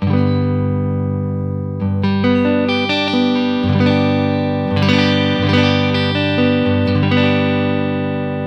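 Fender 60th Anniversary Commemorative American Standard Stratocaster (2014) electric guitar being played: a strummed chord rings out at once, followed by a chord progression with a new chord roughly every second, each left to ring and slowly decay.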